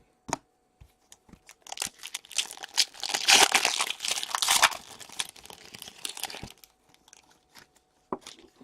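A foil trading-card pack wrapper being torn open and crinkled: a few light clicks, then a dense crackling run of a few seconds that stops about six and a half seconds in.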